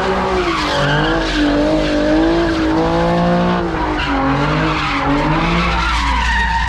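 A car doing donuts. Its engine is revving hard, the pitch rising and falling, over a continuous screech of spinning tires.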